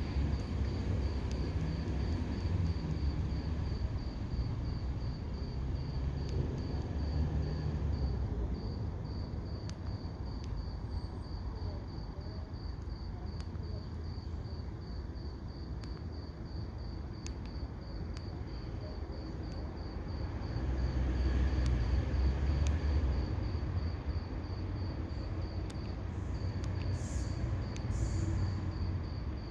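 A cricket chirping in a steady, even string of rapid high-pitched pulses, over a low background rumble that swells about twenty seconds in.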